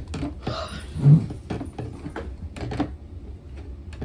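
Knocks and clatter from couch sections being handled and pushed together during assembly, with a short scrape and one heavier thump about a second in.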